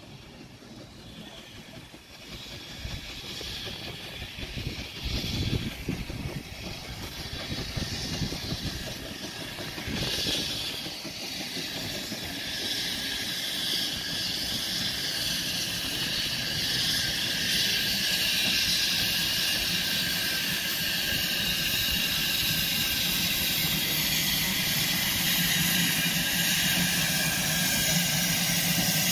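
Small saddle-tank steam locomotive drawing a passenger train into the station, growing steadily louder as it approaches, with the hiss of steam building up over the second half.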